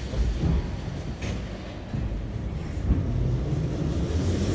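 Em-series (81-501) metro car pulling away from a station, heard from inside the car: a low rumble of the motors and running gear that builds up from about halfway through. There is a thump just after the start and a short click about a second in.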